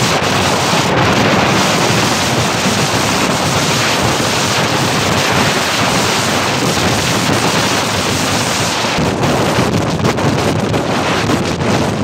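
Hurricane-force storm wind blasting across the microphone: loud, steady wind noise that eases a little about nine seconds in.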